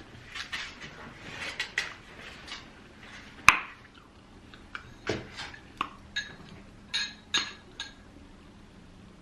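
Close-miked eating of crispy Popeyes fried chicken: short crunchy crackles of biting and chewing, a sharp click about three and a half seconds in, then a few short ringing clinks of dishes.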